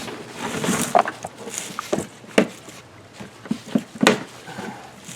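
A chainsaw being lifted out of its carrying case and handled: scattered knocks and clatter with rustling, two sharper knocks about two and a half and four seconds in.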